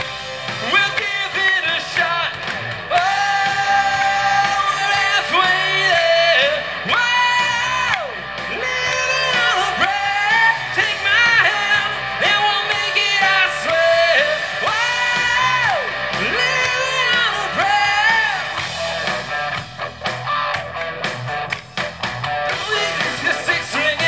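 Live rock band playing, with a harmonica carrying the lead in long high notes that bend up and down over the band.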